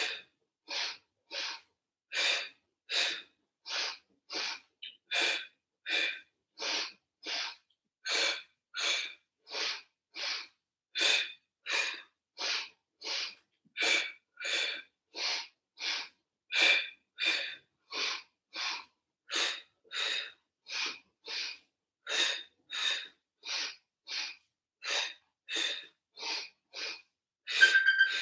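A woman's short, sharp breaths in a steady rhythm, about three every two seconds, paced to the leg pulses of a Pilates single leg stretch, breathing in and out in turn.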